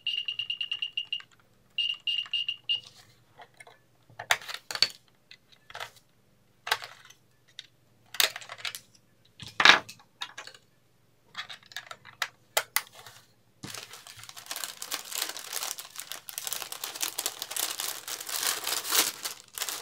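An infrared code detector beeps with a steady high tone as the remote's buttons are pressed, twice in the first few seconds. Then come scattered clicks and knocks as the plastic remote and its battery cover are handled. About 14 seconds in, steady crinkling of plastic bubble wrap starts as the remote is wrapped in it.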